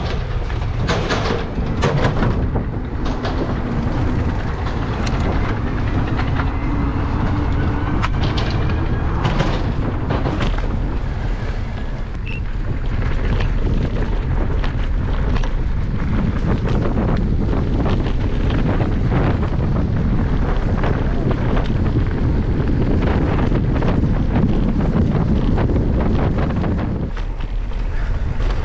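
Electric mountain bike ridden at speed over rough ground: steady wind rumble on the camera microphone with many short knocks and rattles from the bike. A faint motor whine shifts in pitch in the first few seconds.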